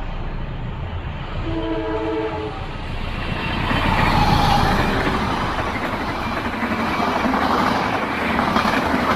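Diesel-hauled passenger train passing close by. The locomotive sounds its horn once for about a second, then its engine and the carriages' wheels on the rails rumble and clatter past, loudest about four seconds in.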